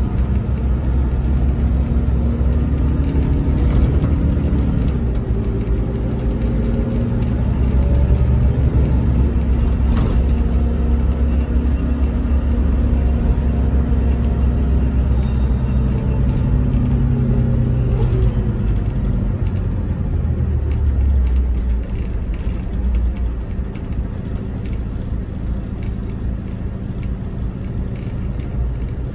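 Volvo B11RT coach's diesel engine and road rumble heard inside the passenger cabin. The engine note rises and falls several times, then eases off near the end and the low rumble drops.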